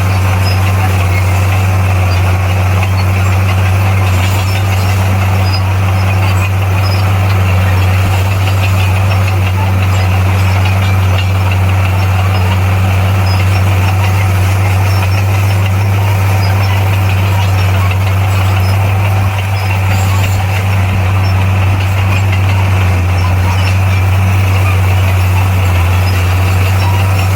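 Bulldozer's diesel engine running at a steady pitch, a loud constant low hum with no revving.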